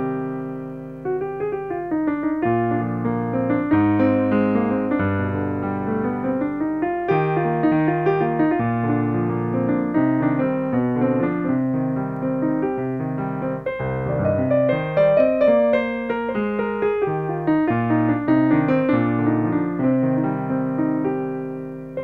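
Solo piano music, single notes and chords struck in a continuous flowing line, fading away near the end.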